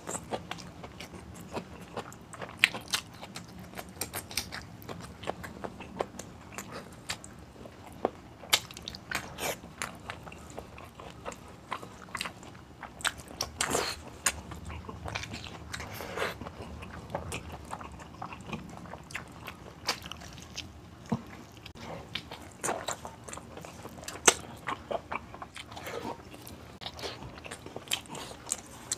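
Close-miked mouth sounds of a person eating beef stew and rice by hand: chewing and lip-smacking, with many sharp wet clicks at irregular intervals.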